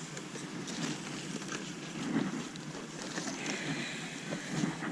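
Outdoor background at a busy open-air market: faint distant voices and light wind on the microphone, with a few small knocks.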